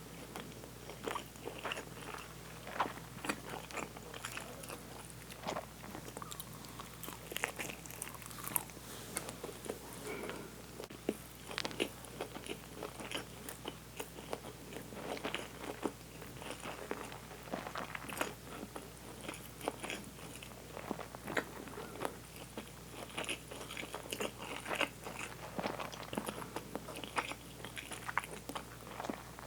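A person eating: irregular biting and chewing, with many small crisp crunching clicks.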